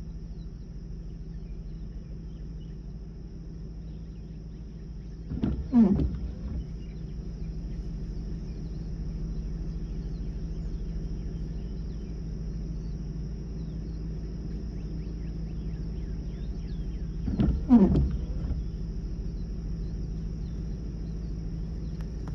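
Cattle mooing twice, about twelve seconds apart, each call falling in pitch, over a steady low hum.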